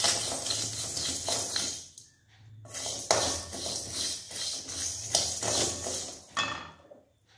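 Wooden spatula stirring rice and chana dal as they dry-roast in a metal kadai, the dry grains scraping and rattling against the pan in quick strokes. It stops briefly about two seconds in, resumes, and dies away near the end.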